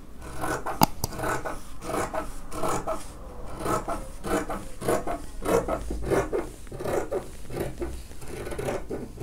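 Scissors cutting through folded layers of printed cloth along a curved line: a steady run of crisp snips, about two to three a second.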